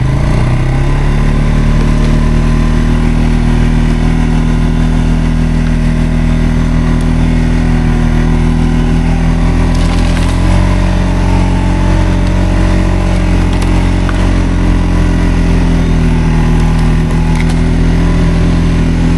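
ATV engine running steadily under load, loud and close. Its note steps up slightly about halfway through.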